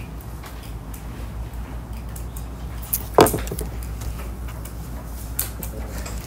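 Classroom room tone: a steady low hum with scattered small clicks and knocks, the sharpest one about three seconds in.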